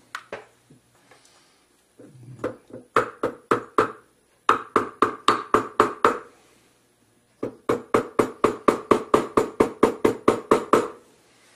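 Rawhide mallet tapping a ring on a steel ring mandrel in rapid strokes, in three runs with the last the longest at about six taps a second, each tap with a brief ringing note. The tapping is putting the freshly sized and soldered ring back into round.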